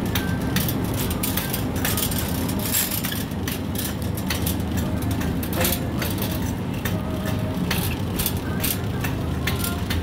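Supermarket background noise picked up by a handheld phone: a steady low hum, with frequent short rustles and knocks from the phone being handled while walking.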